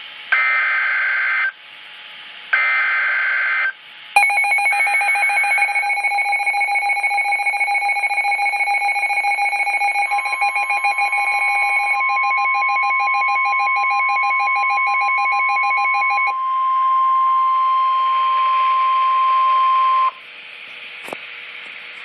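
NOAA Weather Radio Emergency Alert System warning: two short bursts of warbling data tones (the SAME header), then the receiver's own alarm beeping rapidly from about four seconds in, with a third data burst under it. From about ten seconds the broadcast's steady warning alarm tone sounds, the beeping stops near sixteen seconds, and the tone cuts off at about twenty seconds, announcing a severe thunderstorm warning.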